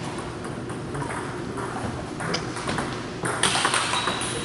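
Table tennis rally: the ball clicks off paddles and table in an irregular string of sharp pings. The sound grows louder and busier in about the last second.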